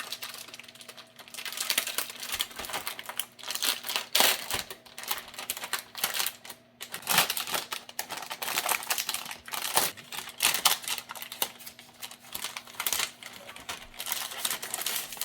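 Cardboard box and plastic packaging being opened and handled: irregular rustling and crinkling with small clicks and knocks.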